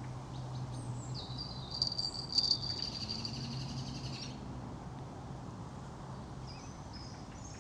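Outdoor creekside ambience: a high, rapid chirping starts about a second in and stops after about three seconds, over a faint steady low hum.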